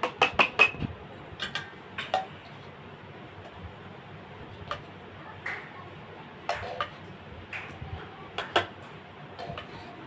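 A steel serving spoon clinking and scraping against a steel plate and a pressure cooker while soft khichdi is scooped and spread: a quick run of clinks in the first second, then scattered single clinks and taps.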